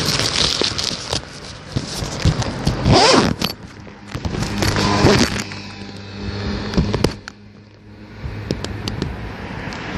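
Riding noise from a bicycle trip: crackling, rattling noise at the microphone, with a vehicle passing about three seconds in, its pitch falling as it goes by.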